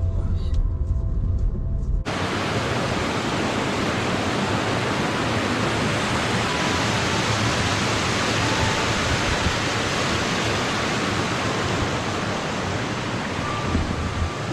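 A low rumble breaks off about two seconds in. A loud, steady rush of mountain water takes over and runs on unchanged.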